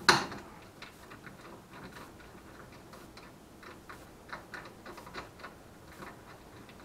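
Ratchet wrench tightening the nut on the upper shock-absorber mount: one sharp metallic click at the start, then light, uneven ratchet clicks a few times a second.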